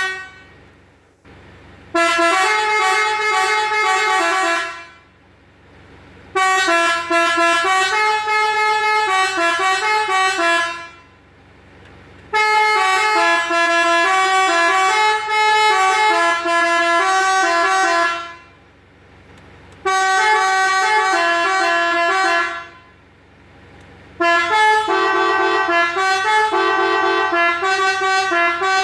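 Telolet bus horn: a 21-button melody module sounding through three air-horn trumpets, playing short tunes of stepping notes in five bursts of about three to six seconds each, with brief pauses between.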